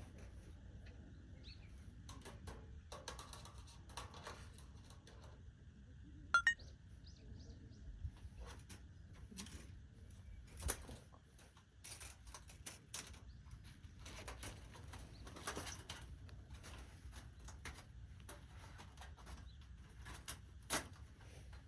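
Scattered light clicks and knocks over a steady low rumble, with a short rising chirp about six seconds in.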